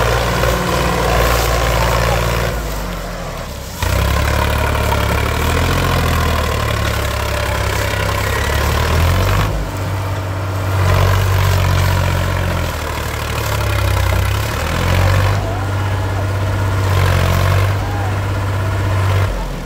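Sonalika 42 DI tractor's diesel engine pulling a fully loaded sugarcane trolley, the engine note jumping up sharply about four seconds in and then rising and falling with the throttle.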